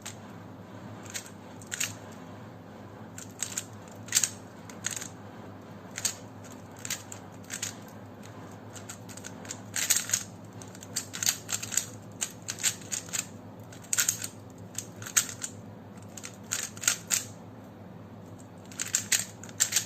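Plastic puzzle cube being turned by hand: irregular sharp clacks and short scrapes of the layers, coming in quick runs of several turns with brief pauses between them.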